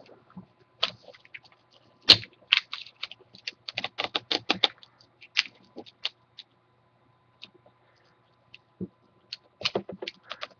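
Irregular small clicks and scratches of hands picking at the adhesive tape over a laptop screen's video cable connector, with one sharp click about two seconds in and a quick run of clicks around four to five seconds. The clicks thin out in the second half and pick up again near the end.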